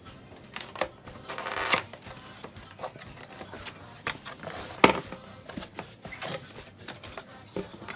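Cardboard box and packaging being handled and opened: irregular clicks and knocks, with a short scraping rustle about a second and a half in and a sharper knock near the middle.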